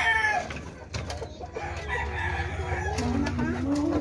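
Chickens clucking and calling in a wooden coop, with a rooster's crow ending about half a second in. A few sharp knocks from the coop's wooden door being handled.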